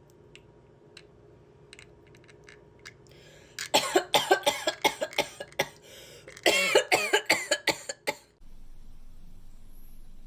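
A person fake-coughing loudly in two bouts of rapid coughs, the first about four seconds in and the second a little later. The coughing is meant to hide the sound of a cat-food can being opened, after a few faint clicks.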